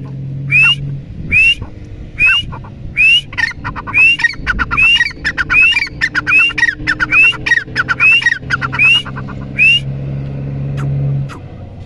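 Grey francolin (teetar) calling loudly: a run of about fifteen shrill, rising notes, coming a little faster as it goes, with lower chattering notes between them in the middle, stopping about ten seconds in. A low steady hum sits underneath, strongest near the start and towards the end.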